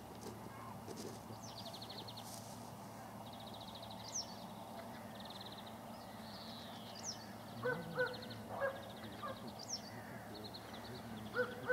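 A songbird repeats a short phrase about every two seconds: a quick rising note and then a fast, even trill. Waterfowl give a few lower calls in the second half.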